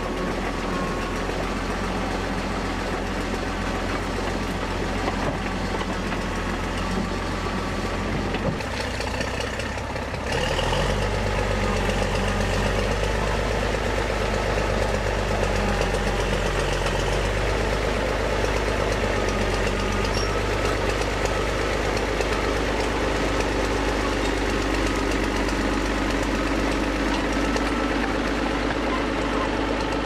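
International TD9 crawler bulldozer's diesel engine running steadily as the dozer crawls through scrub and pushes earth with its blade. The sound shifts and grows a little louder about ten seconds in.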